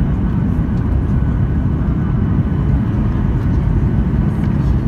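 Steady low rumble inside the passenger cabin of a Boeing 737-800: the CFM56-7B jet engines and airflow running without change.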